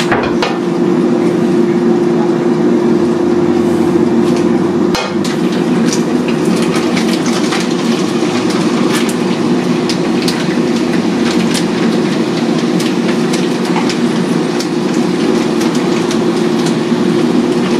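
Oil sizzling and crackling in frying pans as mixed vegetables and prawns fry, over a steady fan hum, with a sharp click about five seconds in.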